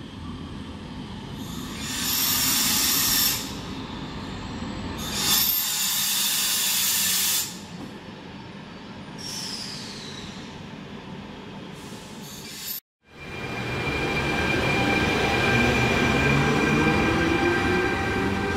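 A regional electric train rolls into the platform with two bursts of high-pitched wheel and brake squeal a few seconds apart. After a cut, a Trenitalia E464 electric locomotive pulls its coaches away, its traction motors' whine rising steadily in pitch as it accelerates.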